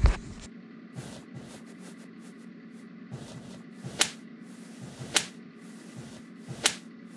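Three sharp punch hit sound effects, about four, five and six-and-a-half seconds in, over a faint steady hum.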